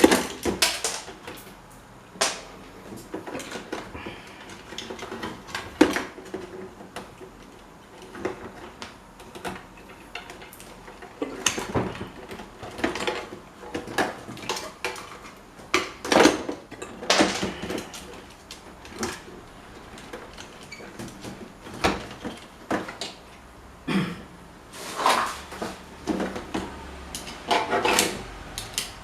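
Irregular clinks, knocks and short scrapes of metal parts being handled and worked on by hand, some strikes ringing briefly.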